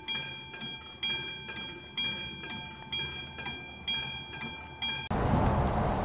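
A level-crossing warning bell ringing, a strong strike about once a second with a fainter strike between, each ringing out. About five seconds in it cuts off suddenly to steady outdoor noise.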